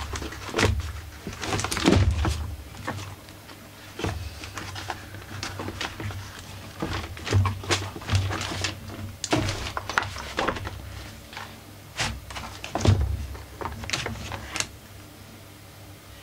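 The plastic body shell of a Kipor IG770 inverter generator being worked loose and lifted off by hand: irregular knocks, clicks and rattles of hard plastic against the frame, loudest in a few clusters, over a steady low hum.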